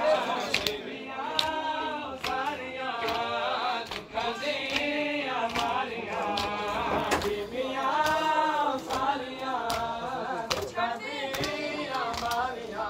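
A group of men chanting a noha, a Muharram lament, in chorus. Sharp slaps of hands striking bare chests in matam cut through it, roughly once a second.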